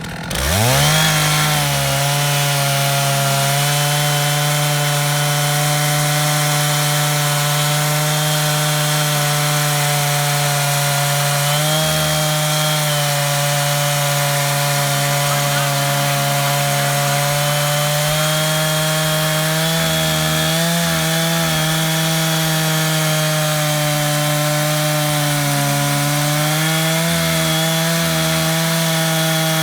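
Two-stroke chainsaw on an Alaskan-style chainsaw mill revving up within the first second, then running steadily at full throttle while ripping the first lengthwise cut through a log. Its pitch sags slightly a few times as the load in the cut changes.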